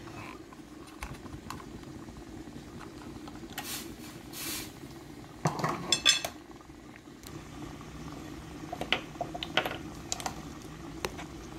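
Light clinks and taps of a measuring spoon against the pot while chicken bouillon powder is spooned onto raw chicken, with a couple of brief rustles about four seconds in. A steady low hum runs underneath.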